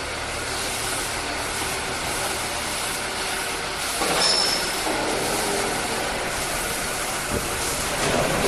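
Steady mechanical noise, a rumble and hiss, that grows louder about halfway through, with a brief high squeal just after that and a single short knock near the end.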